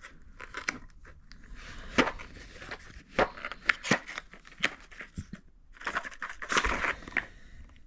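A box of 9mm pistol cartridges being opened and handled: crinkling and rustling of the packaging with a run of sharp clicks, a few louder than the rest.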